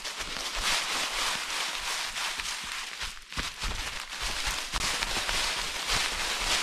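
Footsteps of a trail runner on a dirt path, with rustling and handling noise on the camera.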